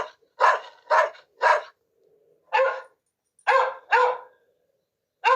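A dog barking: a run of four quick barks about half a second apart, a short pause, then three more barks and a last one at the end.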